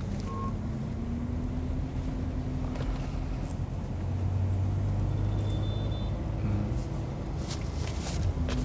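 Inside the cabin of a BAIC BJ40 L SUV on the move: a steady low engine and road hum that swells a little in the middle.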